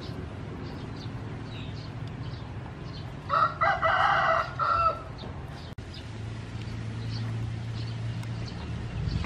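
A rooster crows once, about three seconds in, lasting under two seconds. Faint short bird chirps sound throughout.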